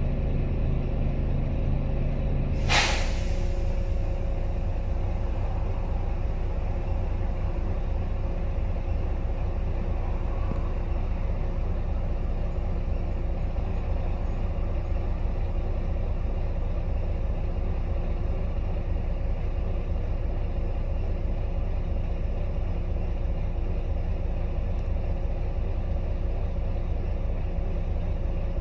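Volvo B9TL double-decker bus's six-cylinder diesel idling while the bus stands still, with one short, loud hiss of air from its air-brake system a little under three seconds in. A steady hum under the engine stops at the moment of the hiss.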